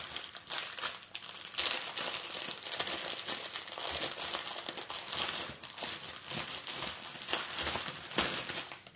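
Small plastic bags of resin diamond painting drills crinkling and rustling as they are handled and sorted, with many small crackles.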